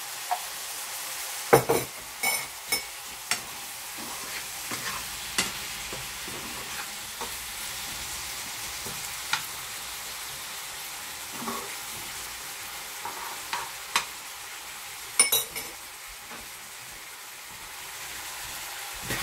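Chopped vegetables sizzling steadily in a frying pan while being stirred with a metal fork, with sharp clinks of the fork against the pan now and then.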